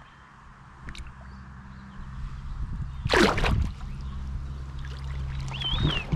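Shallow river water splashing and trickling as a hand releases a Mary River cod, with one loud splash about three seconds in. A short high chirp comes near the end.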